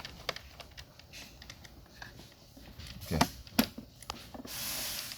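Handling noises from the battery and its case: a run of small clicks and taps, two sharper knocks a little past three seconds in, then a brief rustling hiss near the end.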